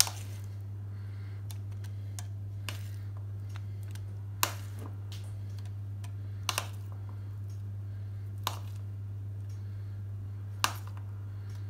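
A spoon clinking and tapping against dishes as diced avocado is spooned onto nachos: about six short sharp clicks, scattered, the loudest about four seconds in and near the end, over a steady low hum.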